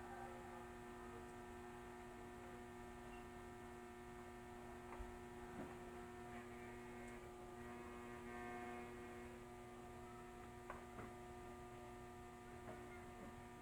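Transformer arc welding machine humming faintly and steadily at idle with no arc struck, a few light ticks now and then.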